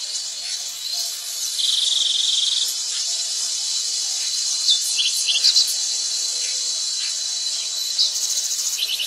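A steady, high shrilling chorus of forest insects, with a louder buzzing trill for about a second, starting about two seconds in. A few short bird chirps cut through around five seconds in and again near the end.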